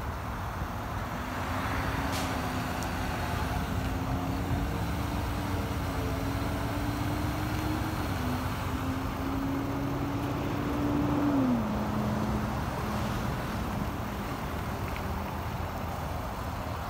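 A 2024 GMC Sierra 2500 AT4X HD's 6.6-litre Duramax turbodiesel V8 running as the truck creeps along at low speed. Its engine note climbs slowly, then drops in pitch twice: about eight seconds in and again about eleven seconds in.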